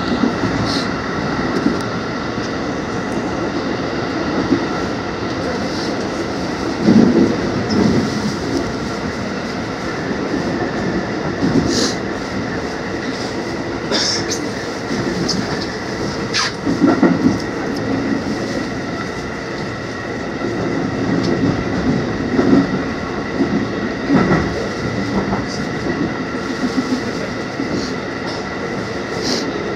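Electric passenger train running at speed through a tunnel, heard from behind the driver's cab: a steady rolling rumble with a faint steady whine, and scattered sharp clicks from the wheels and track.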